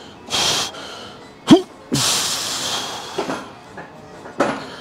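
A man breathing hard through a set of reps on a weight machine: forceful hissing exhales and short grunts that drop in pitch. One long exhale comes about two seconds in.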